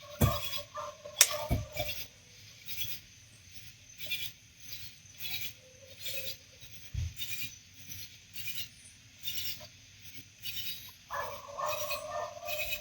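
Night insects chirping in a steady rhythm, about three chirps every two seconds, with a few dull knocks and a brief rasping sound near the end.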